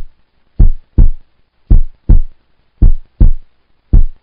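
Heartbeat sound effect: loud, low lub-dub double thumps, one pair about every second, four pairs in all.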